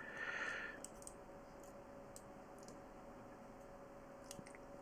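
A few faint, light clicks of a small metal hand tool working at the chip on a MacBook Pro logic board, over a quiet steady hum. A brief soft hiss in the first second is the loudest part.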